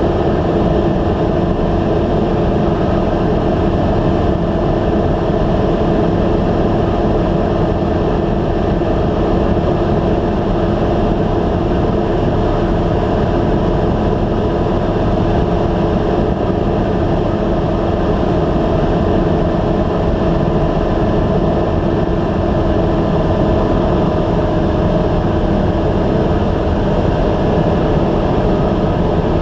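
Single-engine light aircraft's piston engine and propeller running steadily in flight, heard from inside the cockpit as an even drone with several steady tones over a low rumble.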